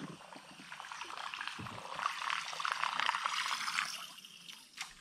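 Water trickling and splashing as a casting lure is drawn back through the surface on its line. It swells about a second or two in and eases off near the end.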